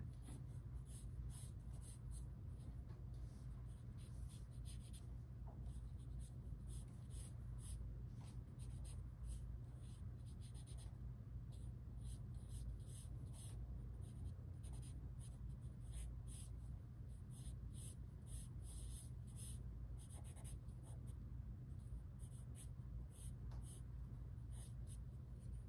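Charcoal pencil scratching on drawing paper in many short, repeated strokes, over a steady low hum.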